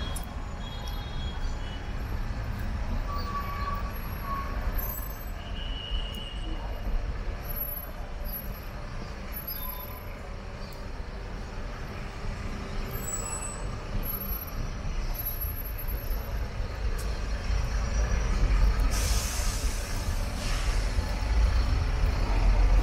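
City street traffic, with a steady low rumble of vehicles and wind buffeting the microphone. A louder hiss swells about nineteen seconds in as a vehicle passes close.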